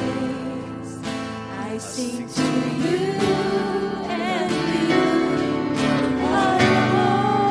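Worship music: a sung melody with held, wavering notes over guitar accompaniment.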